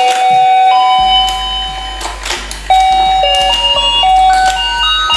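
Battery-powered rotating musical fishing game toy playing its electronic beeping tune, one note at a time stepping up and down, with a few light clicks.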